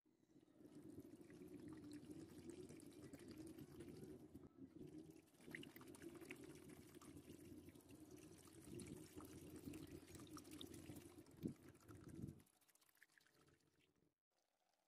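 Synthetic vinegar poured from a plastic bottle into a plastic trough, filling a rust-removal soak bath around a rusted steel blade. A steady faint pour that falters briefly about four and a half seconds in and stops a couple of seconds before the end.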